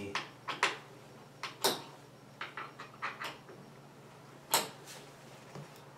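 Scattered light clicks and knocks of bed-frame parts and hardware being handled, with the sharpest knocks near two seconds in and about four and a half seconds in.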